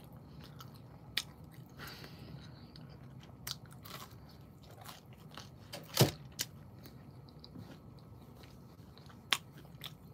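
Close-up chewing and biting of a slice of pizza, with soft wet mouth sounds and small clicks. A single sharp knock about six seconds in is the loudest sound.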